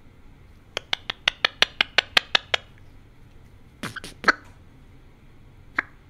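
Male Eclectus parrot making a quick run of about a dozen sharp clicks, roughly six a second, close to the microphone, then a few more scattered clicks.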